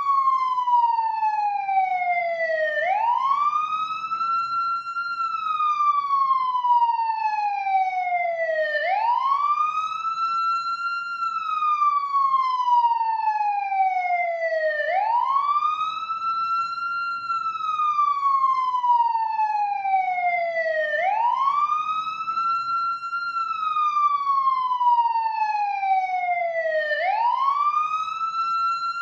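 Ambulance siren sounding a slow wail: the pitch sweeps up quickly, then glides slowly down, repeating about every six seconds.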